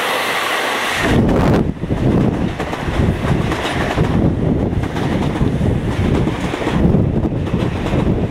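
Kawasaki M8 electric multiple-unit train running through the station without stopping: a high hiss as it approaches, then about a second in a loud low rumble as the cars rush past close by, with their wind buffeting the microphone.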